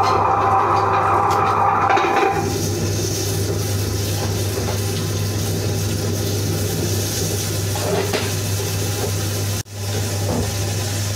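Table-top wet grinder running: its electric motor hums steadily while the stone rollers turn in the steel drum, grinding soaked raw rice. The sound is rougher for the first couple of seconds, and cuts out for an instant near the end.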